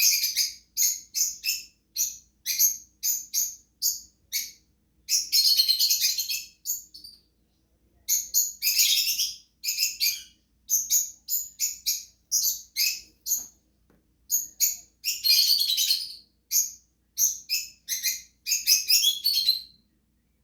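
Cockatiel chirping: rapid short high-pitched calls, several a second, broken by longer chattering runs, with a brief pause about a third of the way in.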